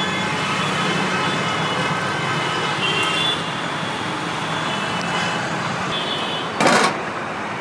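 Steady road traffic noise, with a brief loud clatter about a second before the end.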